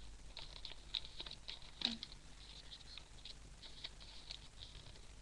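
Sheet of origami paper being folded and creased by hand: soft, scattered crackles and ticks of paper rustling, with one slightly louder crinkle a little before the halfway point.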